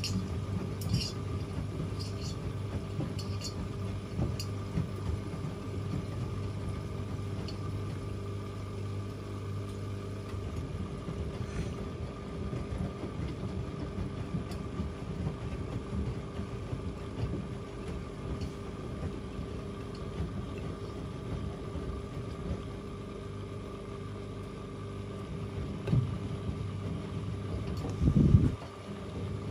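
Two washing machines, an AEG Öko-Lavamat 88840 and a Miele Novotronic W 985 WPS, running an easy-care wash with a steady motor hum. One low hum cuts out about a third of the way in, and there is a short loud knock near the end.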